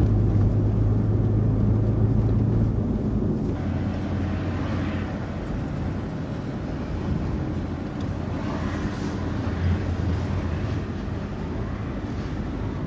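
Car running with engine and road noise, a steady low hum that slowly fades.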